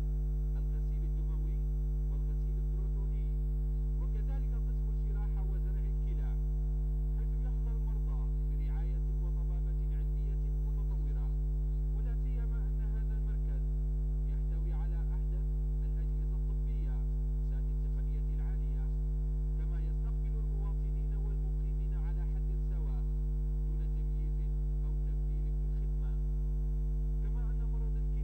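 Steady low electrical mains hum with a stack of overtones, unchanging throughout.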